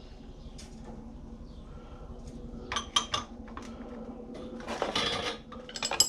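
Steel wrench sockets clinking and rattling as they are picked through and handled. There are a few sharp clicks, a short rattle a little after the middle, and more clicks near the end.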